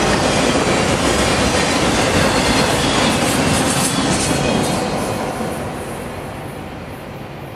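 Freight train of autorack cars rolling past close by, a steady noise of steel wheels on the rails. The noise fades after about five seconds as the last car passes.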